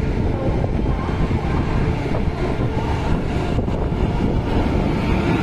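Indian Railways WAP-7 electric locomotive hauling an express train slowly away from the platform: a steady low rumble from the locomotive and its wheels on the rails as it approaches.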